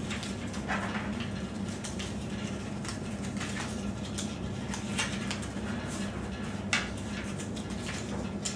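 Paper tetratetraflexagon being flexed open and shut by hand: scattered short paper rustles and soft clicks, over a steady low hum.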